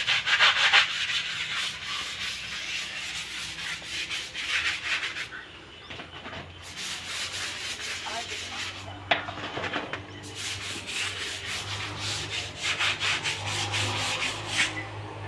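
Scrubbing a soapy concrete wall by hand in quick, rapid strokes, with two short pauses.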